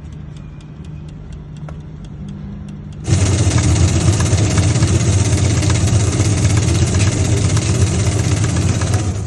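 Top-load washing machine running: a low steady hum with faint regular ticking, then about three seconds in a much louder steady noise starts abruptly and stops just before the end.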